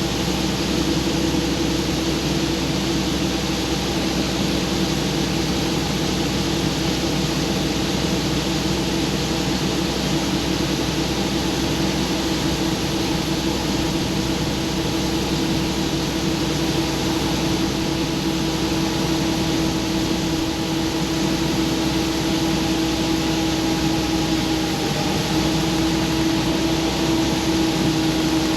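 John Deere combine running steadily, a constant mechanical drone with a steady hum over a wide hiss.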